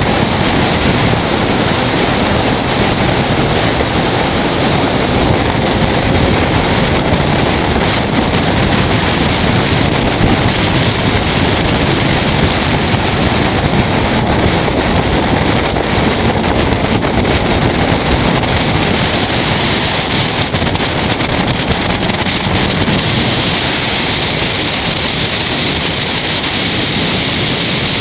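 Race car at speed heard from its onboard camera: a loud, steady rush of wind buffeting the microphone over the car's running engine and road noise.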